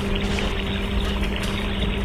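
A steady mechanical drone: a constant low hum with an even rushing hiss over it, unchanging throughout.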